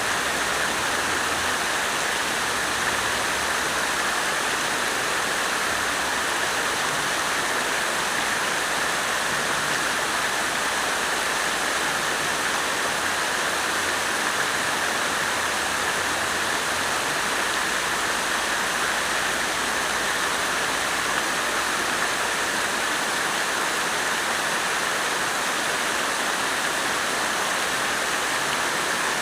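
Water splashing continuously from a fountain, a steady even rush.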